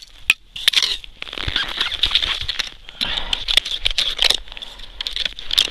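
Boots crunching and crackling on frost-crusted river ice, a dense run of crisp steps after a brief lull at the start.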